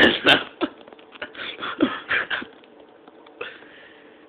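A man coughing and sputtering on a mouthful of dry ground cinnamon: two sharp coughs at the start, then shorter muffled gags and throat sounds over the next couple of seconds before it settles.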